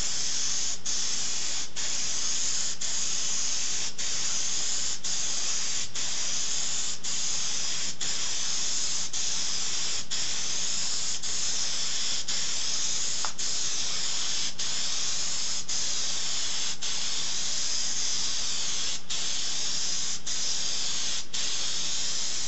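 Aerosol can of fast-drying gray primer spraying in a steady hiss, with very brief breaks about once a second as the nozzle is let off between passes.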